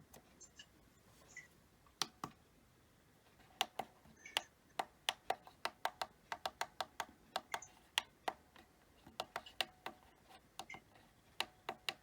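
Buttons on a La Crosse W85947 weather radio pressed over and over while stepping through its settings: a string of short, sharp clicks, a few at first, then quick runs of presses through the middle and again near the end.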